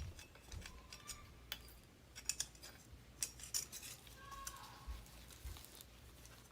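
Faint, irregular metallic clicks and clinks, a few with a brief ring, from hand-fitting the mounting bands and bracket parts onto a furnace blower motor.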